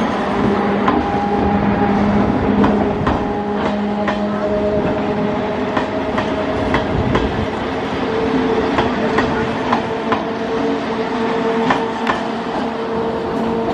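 Indian Railways express train passing at speed: a steady rush of steel wheels on rail with clickety-clack over the rail joints, the clicks coming in uneven clusters, over a few steady humming tones.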